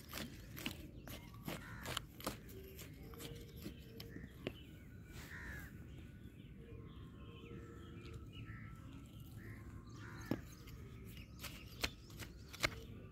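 A hand weeding blade scrapes and chops into dry, clumpy soil around young chilli plants, making irregular sharp clicks and scratches. Birds call in the background.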